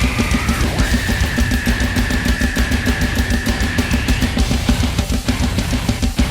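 A drum kit played along to a heavy metal track: fast, dense drumming with rapid bass-drum hits. A high held note sounds over the band for about three seconds, starting about a second in.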